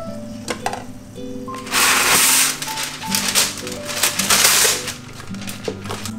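Soft background music with two loud bursts of crinkling rustle, a plastic bread bag being handled, about two seconds in and again near four seconds, among a few small clicks.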